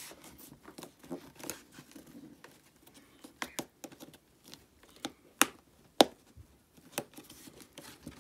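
Plastic clicks and light rubbing as a breath guard is pressed into its clip mounts in a Shoei NXR full-face helmet. A handful of sharp clicks, the two loudest about five and a half and six seconds in.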